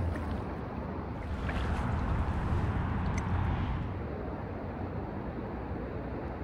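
Steady wind noise buffeting the microphone on an open lakeshore, with a couple of faint ticks about two and three seconds in.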